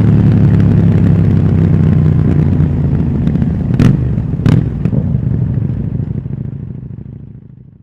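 KTM Duke 790's 799 cc parallel-twin engine running through its stock exhaust, a steady low tone, with two sharp knocks about four seconds in; the sound then fades out to silence near the end.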